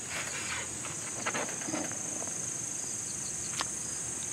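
Insects chirring in a steady, high-pitched outdoor chorus, with a few faint clicks from handling utensils at the table.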